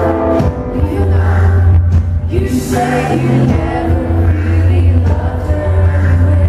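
Live pop-rock band performance: women's voices singing held notes over a heavy, steady bass line, loud and echoing as in a large hall.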